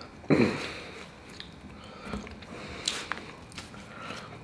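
Close-up chewing and mouth sounds of someone eating a fried chicken sandwich, with scattered small wet clicks. A short louder sound with a falling pitch comes about a third of a second in.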